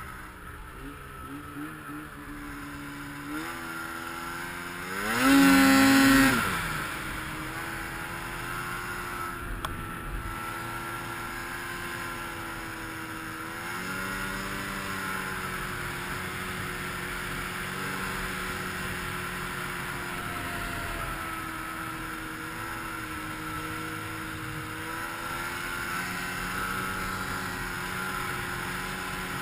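2014 Arctic Cat M6000's two-stroke twin snowmobile engine running under load while breaking trail in deep snow. The revs climb to a loud peak about five seconds in, drop back after a second or so, then hold a steady note with a small rise about halfway through.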